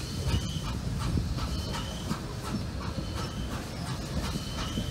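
Norfolk & Western 611, a J-class 4-8-4 steam locomotive, rolling past close by: a steady rumble with regular clicks about twice a second and some hiss.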